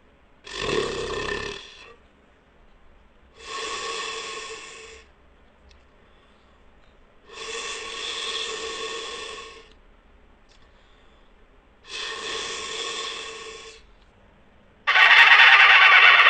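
Horse sound effect: five raspy, buzzing blows, each one to two seconds long, spaced about three to four seconds apart, the last one much louder.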